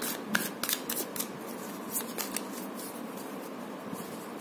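A deck of tarot cards being shuffled and handled. Quick, crisp card snaps come through the first couple of seconds, then it goes quieter.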